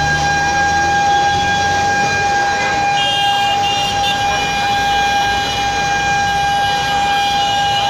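Emergency siren, plausibly a fire engine's, holding one long steady high note. A second, higher tone sounds briefly about three seconds in.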